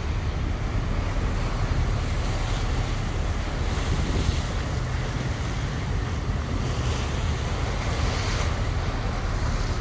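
Wind buffeting the microphone over water rushing and splashing, with a steady low rumble underneath, heard from a yacht at sea. The hiss of the water swells up about four seconds in and again near the end.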